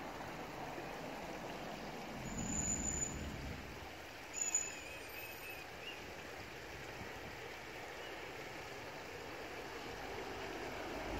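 River water running steadily in a shallow stream. There is a brief low rumble about two seconds in and a short sharp sound at about four and a half seconds.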